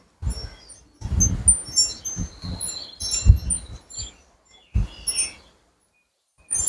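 Birds chirping in short high notes, with several low rumbles on the microphone between them.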